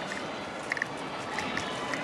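Footsteps on a paved path at a walking pace, a step every half second or so, over steady outdoor background noise with a few short high chirps.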